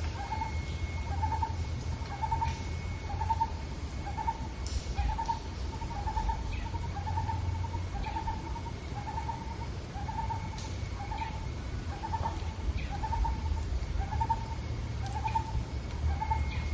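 A short, slightly rising bird-like call repeated about twice a second over a steady low hum.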